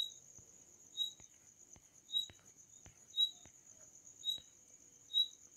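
Faint background chirping: a short high chirp about once a second over a steady high-pitched trill, with a few faint clicks.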